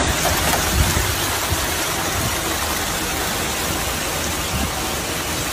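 Hailstorm with heavy rain pelting down, a steady dense hiss with scattered low knocks.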